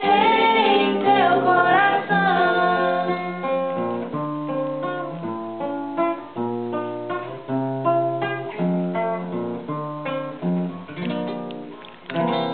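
A woman's voice holds a final wavering note over acoustic guitar for about two seconds. The guitar then plays a plucked closing passage alone, which trails off near the end.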